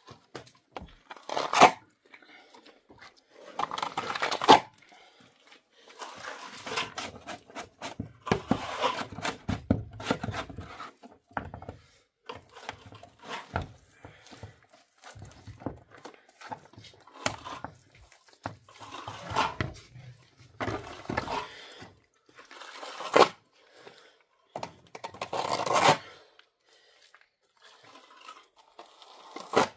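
Wet plaster being smeared and scraped onto a concrete-block wall by hand and with a wooden float: irregular rasping strokes of a second or two each, with a couple of sharp knocks.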